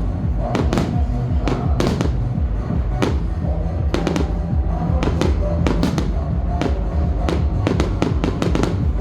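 Fireworks going off in many sharp, irregularly spaced cracks and bangs, over music with a heavy bass.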